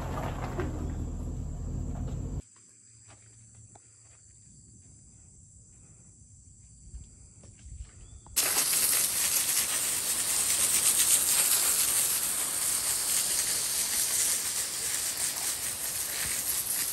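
A Chevrolet Suburban's engine running at low speed as it backs up, a steady low hum, cut off abruptly about two and a half seconds in; after a quiet stretch with a few faint clicks, a garden hose starts spraying water onto hog carcasses on concrete, a loud steady hiss for the rest of the time.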